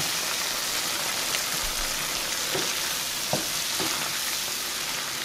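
Pinto beans and their broth sizzling in a frying pan of hot fat and softened onions, stirred with a wooden spoon, with a few short knocks of the spoon against the pan near the middle.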